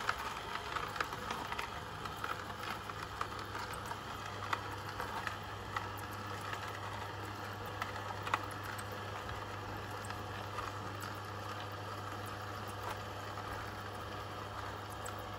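Kuvings C7000 whole slow juicer running: a steady low motor hum with faint, irregular crackles and clicks as the auger presses the produce.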